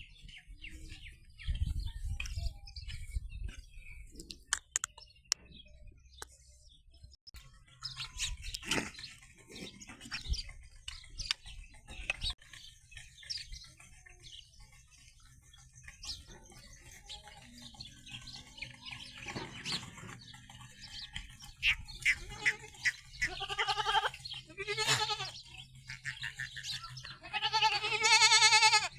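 Goats bleating: a few loud, wavering bleats in the second half, the longest near the end, over scattered light knocks and clicks.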